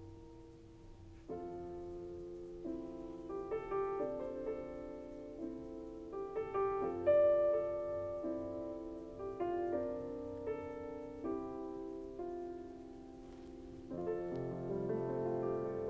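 Background piano music, slow chords and melody notes changing about once a second.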